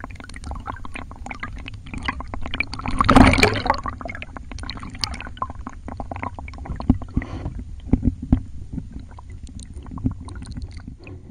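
Water sloshing and gurgling around a camera held at the water's surface, with many small clicks and pops and a louder rush of water about three seconds in.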